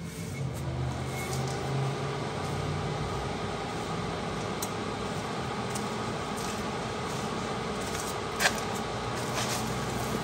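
Everlast Cyclone 312 inverter welder just powered on, its internal cooling fan spinning up over the first couple of seconds and then running steadily. A few faint clicks.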